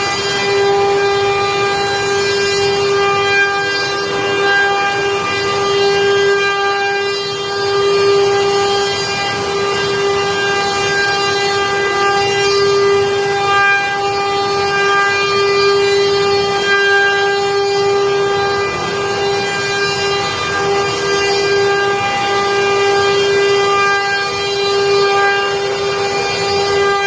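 CNC machine spindle running under load while cutting chair-leg stock, a steady high whine with many overtones that wavers slightly as the cutter works.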